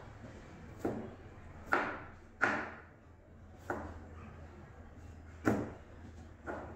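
Chef's knife slicing a carrot on a plastic cutting board: six sharp knocks, unevenly spaced about a second apart, each as the blade cuts through and strikes the board.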